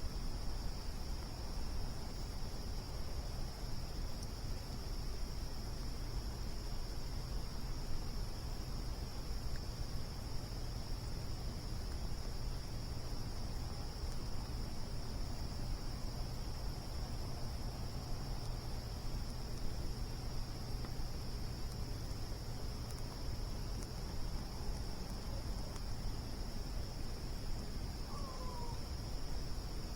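Crickets calling in a steady, unbroken high trill over a low, even rumble. A short falling chirp comes about two seconds before the end.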